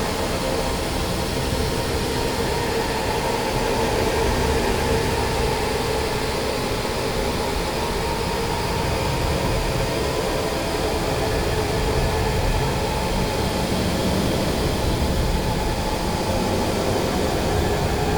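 Experimental noise-music track: a dense, steady wall of noise with a couple of held tones running through it, unbroken and at an even level throughout.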